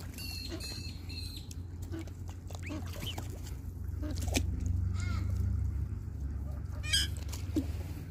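Black swans and ducks calling at close range: scattered short calls, some rising in pitch, with a fast run of high calls near the end and a sharp click about four seconds in, over a steady low rumble.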